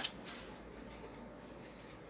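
A sharp click right at the start, then faint steady background noise with no distinct sound.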